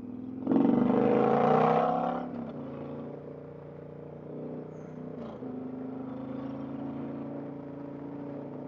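Indian Challenger's 108 cubic inch V-twin with an aftermarket exhaust accelerating hard about half a second in, its pitch climbing for under two seconds. It then settles into a steady, quieter cruise.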